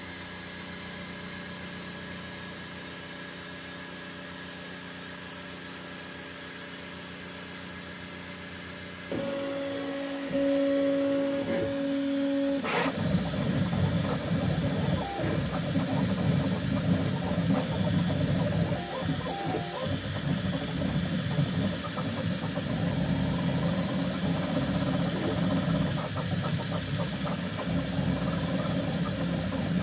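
Bambu Lab X1 Carbon 3D printer at work. Its fans hum steadily at first; about nine seconds in a steady two-note hum starts, and a sharp click ends it about three seconds later. From there on the stepper motors whir and buzz, changing pitch constantly as the print head darts about laying down the first layer.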